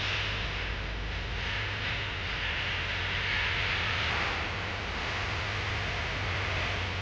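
Ice arena ambience during a hockey game: a steady wash of noise with a low hum underneath.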